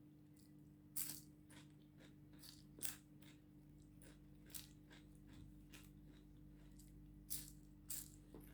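Quiet, scattered crunches and clicks of someone eating crisp food close to the microphone, the sharpest about a second in, near three seconds and twice near the end, over a low steady hum.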